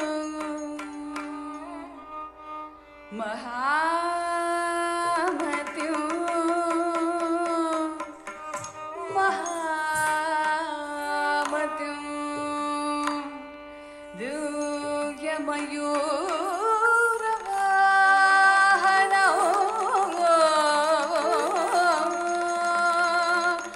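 Recorded Carnatic music in raga Shanmukhapriya, set to Adi talam: a sung melody with sliding, ornamented notes, over percussion strokes that stand out around the middle.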